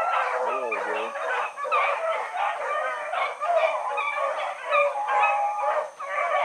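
A pack of rabbit dogs baying together while running a rabbit's trail, many voices overlapping in one continuous chorus.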